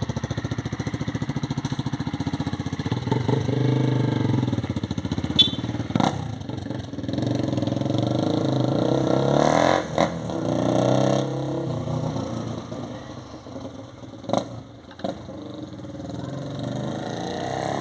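Honda CB motorcycle engine heard through its exhaust: it idles with an even, rapid pulse for about three seconds, then is revved up and down several times, its pitch rising and falling. A few sharp clicks come in between the revs.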